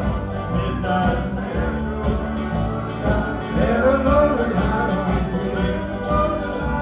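Live band playing, guitars strumming over a steady beat, with singing.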